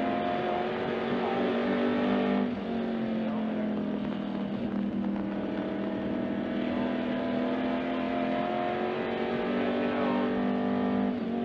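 Race car engine heard from inside the cockpit, running hard at high revs. Its note drops sharply about two and a half seconds in, slowly climbs again, and drops once more near the end.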